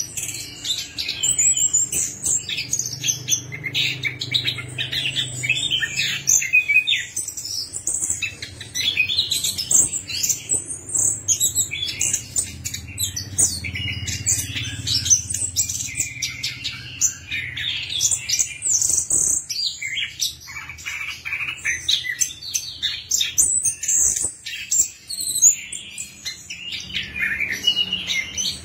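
Chestnut-capped thrush (anis kembang) singing a fast, almost unbroken run of varied high chirps and trills, the song used to prompt a silent bird into singing.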